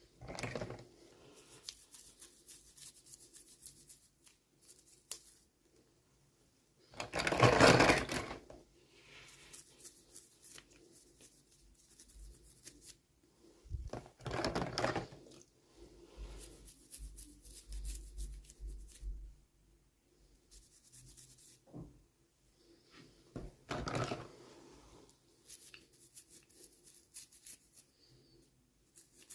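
Toy packaging being handled and opened by hand, rustling and crinkling in short irregular bursts, the loudest about seven to eight seconds in.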